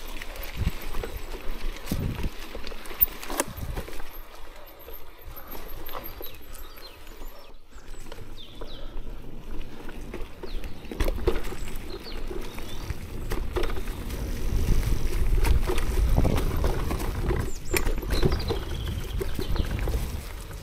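Mountain bike rolling down a rough dirt trail: tyres crunching over leaves and ground, with irregular knocks and rattles from the bike and a low rumble that grows heavier in the second half.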